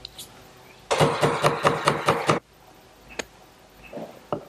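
A chisel chopping into walnut to square the corners of a routed dado: a quick, even run of about ten knocks, then a few single taps near the end.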